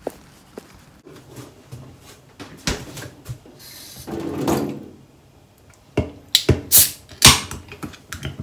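Handling noises at a stainless kitchen sink: scattered clicks and knocks, a brief sliding rustle about four seconds in, then a quick run of loud, sharp metallic clacks near the end as a 350 ml aluminium beer can is handled and its pull tab opened.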